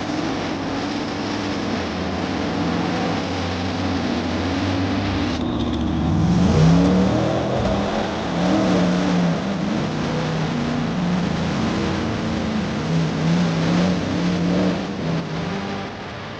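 Off-road buggy engines revving hard under load, the revs rising and falling. About five seconds in the sound changes to a second buggy revving through a mud pit.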